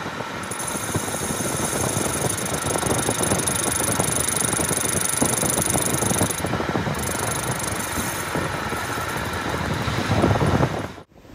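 Metal lathe turning an aluminium piston blank, the cutting tool taking a cut at its open end: a steady machine hum under a dense crackle of the cut, with a high steady whine. It grows louder shortly before the end, then cuts off sharply.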